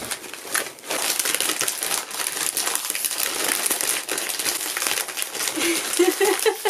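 Plastic snack packaging crinkling as it is handled and opened.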